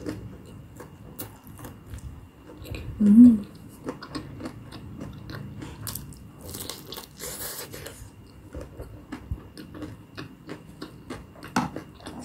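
Close-miked eating sounds: biting into and chewing a potato-coated corn dog, with many small wet mouth clicks and a noisier bite about six and a half seconds in.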